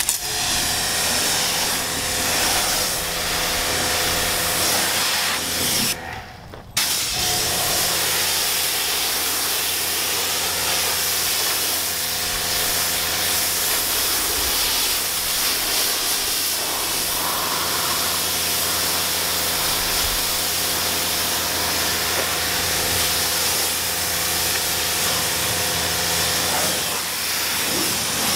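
Pressure washer spraying a jet of water to rinse shampoo foam off a car body: a loud, steady hiss of spray over the washer's motor and pump humming underneath. The spray and hum stop for about half a second around six seconds in, then start again.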